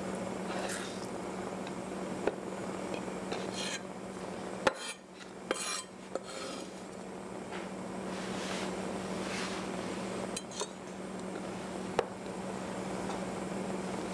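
Steel chef's knife scraping chopped green onions across a wooden cutting board into a metal measuring cup, with a handful of sharp clicks and clinks as the blade and cup knock on the board and on each other.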